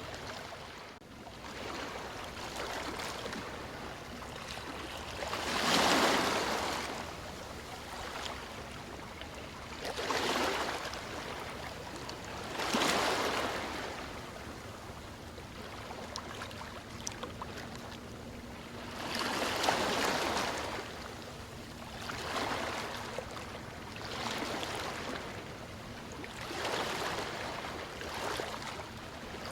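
River water rushing and splashing, swelling into louder surges every few seconds.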